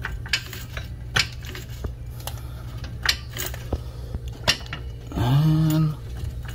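Scattered sharp metallic clicks and clinks from a coilover's shock shaft and hardware being worked up into the upper mount, over a steady low hum, with a short low hum a little after five seconds in.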